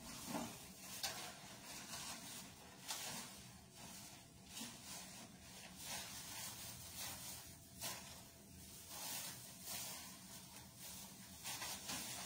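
Plastic bag rustling and crinkling in short irregular swishes as it is handled and filled.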